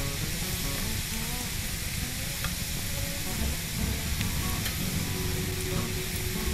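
Grated carrot, onion and tuna sizzling in hot oil in a frying pan, with a steady crackling hiss, while a silicone spatula stirs them and knocks against the pan.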